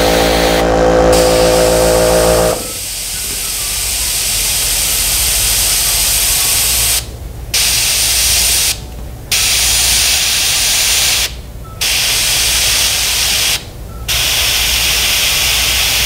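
Airbrush spraying paint: a steady, high hiss of air that cuts out briefly four times as the trigger is released between dots. A steady hum, loud at first, stops about two and a half seconds in.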